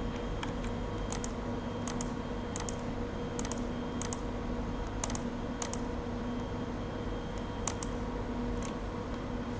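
Scattered clicks from a computer keyboard and mouse, about ten in all, several in quick pairs, over a steady low electrical hum.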